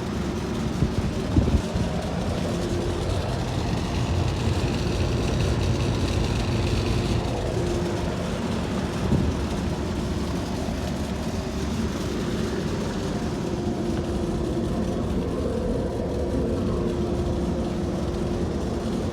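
Goodman 13 SEER central air-conditioner condensing unit running steadily just after starting up: compressor hum with the outdoor fan. A couple of brief knocks about a second in.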